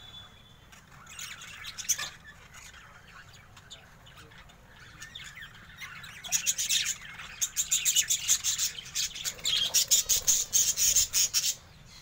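A flock of budgerigars chattering with rapid chirps and squawks, sparse at first and becoming busy and loud from about six seconds in.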